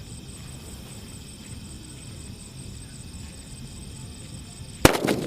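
Quiet wait with a faint steady high whine in the background, then near the end a single sharp bang from a Diwali 'blue bomb' firecracker going off, followed at once by a few quick cracks and a fading echo.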